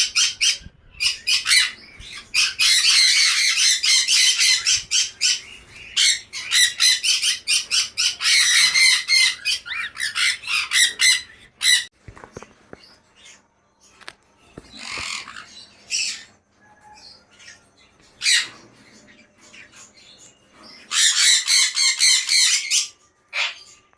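A group of pet birds squawking and chirping in fast, loud, high-pitched chatter. The calling is dense for the first half, thins to scattered calls, then comes back in a loud burst near the end.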